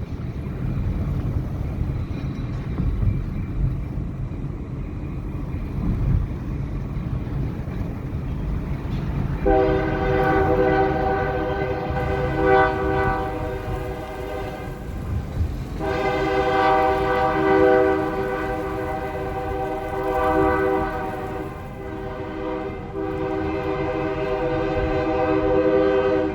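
A Great Lakes Central diesel locomotive's multi-note air horn sounding long blasts over the low rumble of the train. The horn starts about ten seconds in and breaks off briefly twice before sounding again.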